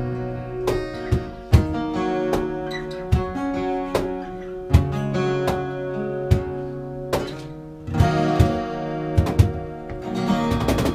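Acoustic guitars playing a song together, strummed and picked chords over a steady pulse of sharp percussive hits about once a second, with a last strummed chord near the end.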